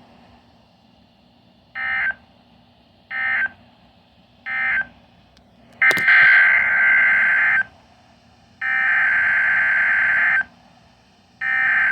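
Emergency Alert System SAME data bursts from a weather radio broadcast, a harsh buzzy digital screech. Three short end-of-message bursts come about a second and a half apart, marking the end of the warning. After a click, the longer header bursts of the next alert follow, each lasting under two seconds with about a second between them; the third starts near the end.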